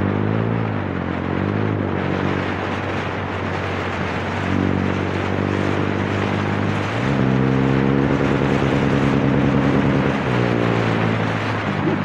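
TVS Raider 125's single-cylinder engine running through an aftermarket exhaust while the bike is ridden. The engine note rises and falls twice in the first two seconds, then holds steady, then runs higher and louder from about seven seconds in before dropping back near ten seconds.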